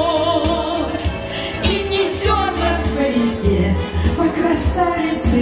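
Live pop song from a small deck band: a singer over keyboard backing with a steady bass beat, played through loudspeakers.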